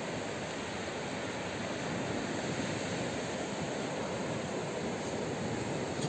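Surf of a rough sea breaking on a beach, a steady rush of noise.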